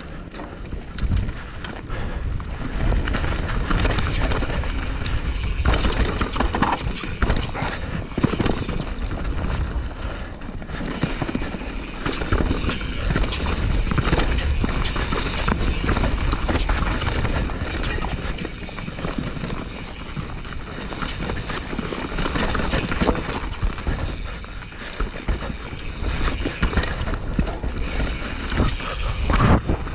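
Mountain bike riding down a dirt forest trail: knobby tyres rolling and skidding over dirt, rock and roots, with the bike rattling and knocking over the bumps. Wind buffets the microphone.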